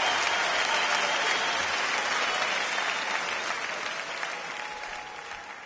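Audience applause, a dense, even clapping that slowly fades out.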